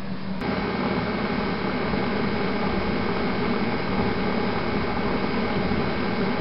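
Steady mechanical hum with a rushing noise, starting suddenly about half a second in.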